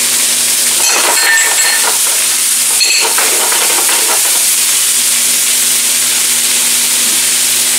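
Mushrooms and vegetables sizzling in a hot nonstick frying pan over a gas flame, as a steady hiss. A few short scrapes and knocks about a second in and again about three seconds in, as the pan is stirred and shaken.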